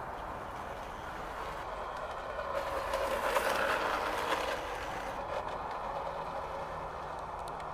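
Garden-railway model tramcar running along the track, its wheels rumbling on the rails. The sound swells as it passes closest, about three seconds in, then eases back.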